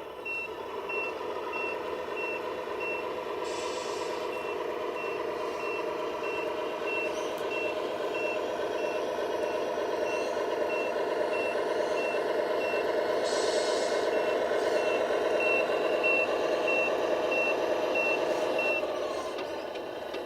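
A radio-controlled construction vehicle reversing, its reversing beeper sounding steadily at about two beeps a second over a continuous mechanical whir. There are two short hisses, one about 3.5 seconds in and one about 13 seconds in, and the beeping stops shortly before the end.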